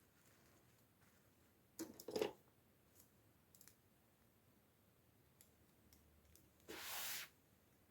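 Small plastic toy packaging being handled: a quick cluster of clicks about two seconds in, a few faint ticks, and a brief rustle near the end, with near silence between.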